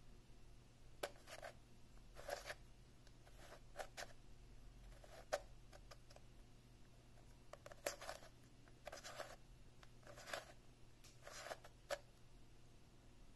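A QiYi Clover Cube, a plastic twisty puzzle, being turned by hand for its first turns: faint, short scratchy plastic swishes and clicks of its layers, one or two a second, with a brief pause midway.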